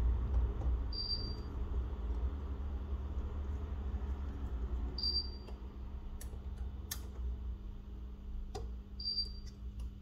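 Sparse small clicks and taps, a few sharp ones in the second half, over a steady low hum, consistent with handling phone parts and repair tools on a bench. A short high beep recurs every four seconds.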